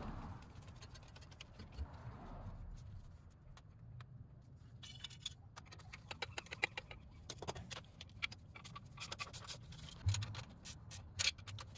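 Bell-housing bolts being threaded in and snugged down by hand: faint metal scraping, then a run of small clicks from about halfway, with a dull knock near the end.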